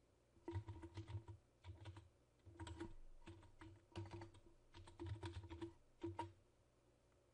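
Typing on a computer keyboard: quick runs of keystrokes in several bursts, stopping about a second before the end.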